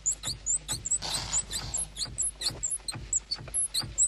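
A rapid run of short, high-pitched squeaks, about five a second, with a brief hiss just after a second in.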